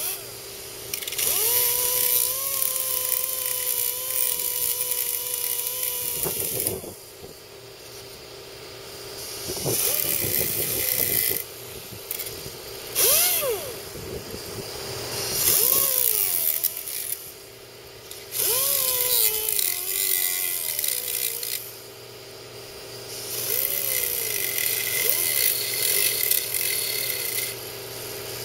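Small air-powered grinder run in five bursts of a few seconds each, chamfering the cut end of a bolt. It hisses and whines at speed, and its pitch rises and falls as it spins up and winds down between runs.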